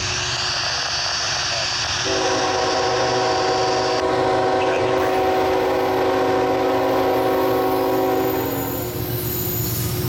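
Norfolk Southern diesel locomotive's multi-chime air horn blowing one long blast of about seven seconds, starting about two seconds in, over the rumble of the approaching locomotive.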